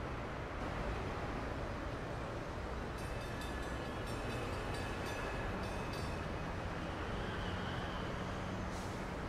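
Steady low rumble of vehicle noise, with faint thin tones in the middle.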